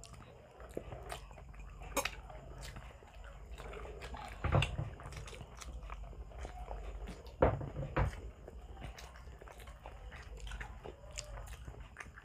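Close-miked chewing and biting of grilled Filipino barbecue, with wet mouth sounds and many small clicks. There are a few louder thumps, about two seconds in, midway and twice near the two-thirds mark.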